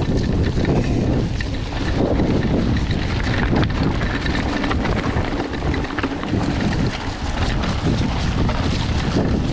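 Wind buffeting the microphone: a loud, steady low rumble with a few faint clicks through it.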